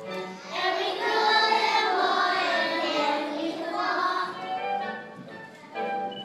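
A group of young children singing together over a music track, swelling louder for a few seconds after the start.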